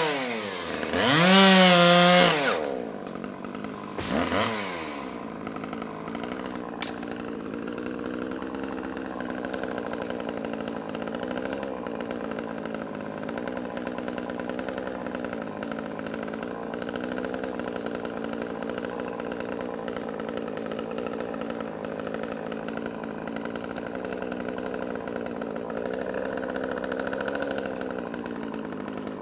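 Chainsaw revved up and back down twice in quick succession near the start, then a smaller blip of the throttle, after which it settles into a steady idle.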